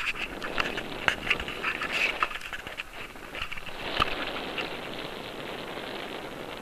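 Wind buffeting a camera microphone high up on a parasail tow, with irregular crackling and clicking for the first few seconds, then a steady rushing hiss from about four seconds in.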